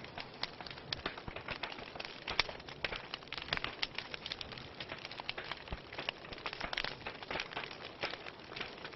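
Wood fire burning in a fireplace: irregular crackles, pops and snaps over a soft steady hiss.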